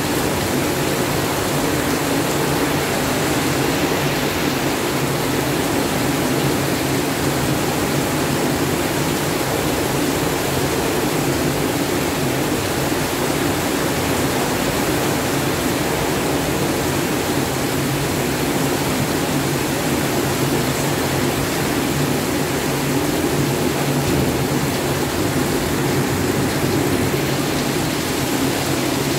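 Heavy rain falling in a steady downpour, an even, unbroken hiss of water.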